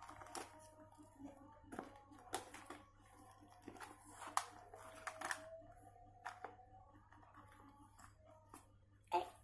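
Clear plastic makeup pouch crinkling and small makeup items clicking against it as it is packed up by hand, in irregular sharp clicks and rustles, with a louder rustle near the end.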